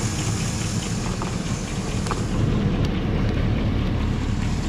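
A GMC Yukon Denali's 6.0-litre Vortec V8 idling with the air conditioning on and its fans running: a steady low rumble under a rush of air. The engine is running again on a freshly fitted EGR valve.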